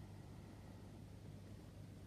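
Near silence: room tone with a steady low hum.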